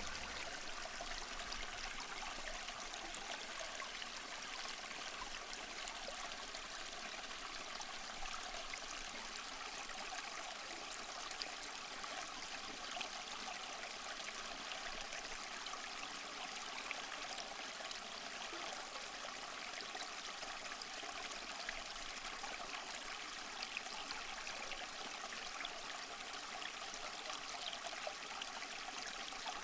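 Aquarium water running: the steady trickle of a hang-on-back filter's outflow and the bubbling of air stones, with faint small pops throughout.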